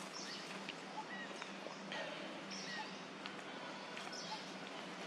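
Open-air ambience with a steady faint low hum and scattered short, thin bird chirps and small clicks.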